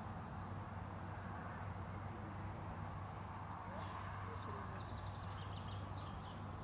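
Steady outdoor background of low rumble and hiss, with a few faint bird chirps about four seconds in.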